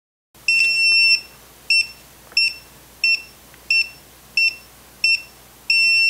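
ENFORCER SK-1323/SK-2323 series access keypad beeping: a long beep, six short evenly spaced beeps and another long beep near the end, all on one high tone. The six beeps, one per digit, confirm that the master code length has been changed to 6 digits.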